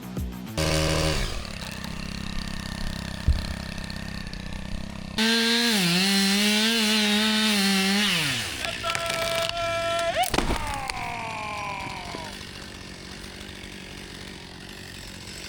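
Two-stroke chainsaw running, held at high revs for about three seconds partway through, then dropping off; its pitch falls again a couple of seconds later.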